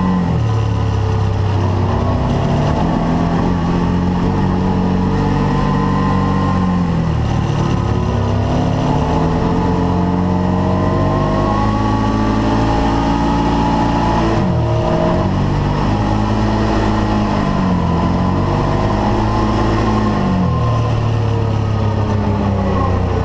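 Arctic Cat Wildcat side-by-side's engine running hard, its pitch rising and falling again and again as the throttle is opened and let off.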